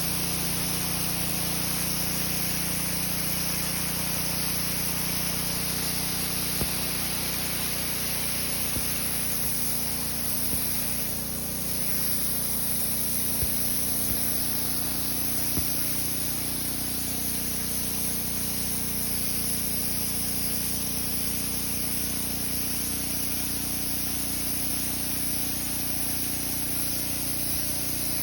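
Pressure washer with a jet nozzle spraying water onto a driveway: a steady high hiss of spray over the even hum of the machine's motor, with a few faint ticks.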